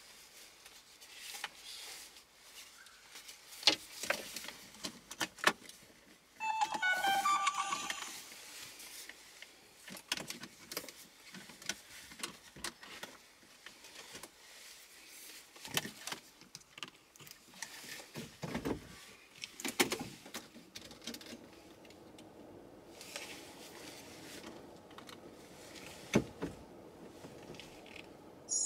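Dashcam power cable being handled and tucked into the car's interior trim: scattered clicks, taps and rustles, with a brief pitched sound lasting about a second and a half around seven seconds in.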